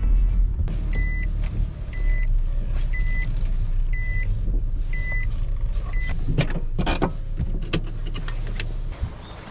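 Car engine idling with an in-car warning chime beeping about once a second, six times. A few knocks and clunks follow, then the engine cuts off near the end.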